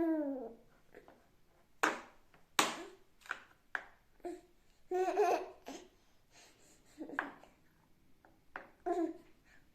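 A baby laughing and giggling in short bursts, with a couple of sharp clicks about two seconds in.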